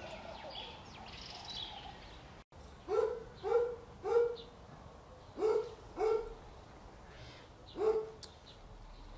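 A beagle barking six short barks in uneven groups: three, then two, then one near the end. Faint bird chirps can be heard in the first couple of seconds.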